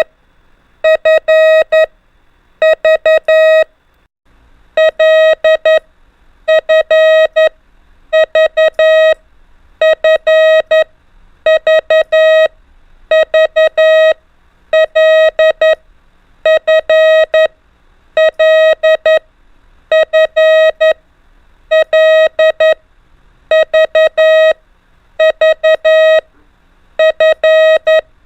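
Morse code sent as a steady beeping tone of about 600 Hz, keyed into dots and dashes for the letters L, F and V. The short clusters repeat every second and a half to two seconds.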